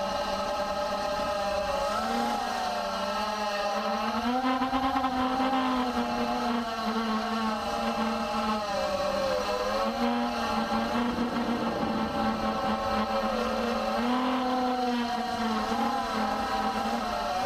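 Electric motors and propellers of the camera-carrying RC chase aircraft whining, several pitches together rising and falling as the throttle changes.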